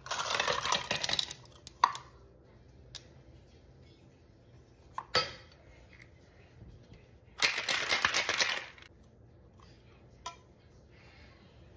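Ice cubes tipped into a copper cobbler cocktail shaker, rattling against the metal, then a few sharp clicks as the shaker's parts are fitted together. About seven seconds in, the ice rattles hard for a little over a second as the shaker is shaken, and a single light click follows near the end.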